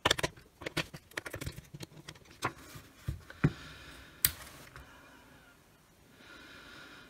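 AA batteries clicking and rattling into the plastic battery compartment of a FLIR thermal imaging multimeter: a quick run of small clicks. A little after four seconds in comes a single sharper click as the meter's rotary selector dial is turned on.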